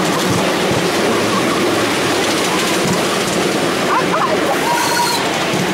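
Miniature steam locomotive LNER 458 running with its passenger train, heard from the car right behind it: a steady rush of running noise from wheels on rails and the engine.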